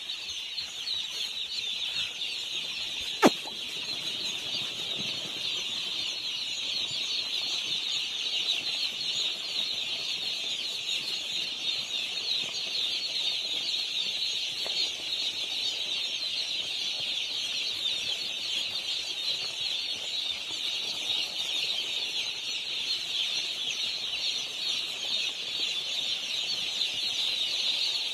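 A flock of day-old chicks peeping together in a dense, continuous high-pitched chorus, with one sharp click about three seconds in.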